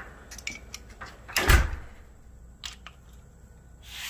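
Light metallic clicks of tools on the engine, then one heavy clunk about a second and a half in. A wrench is working the bolt on the camshaft nose of a 392 Hemi while a screwdriver wedged in the cam gear holds the cam still, to remove the pulley used to guide the camshaft in.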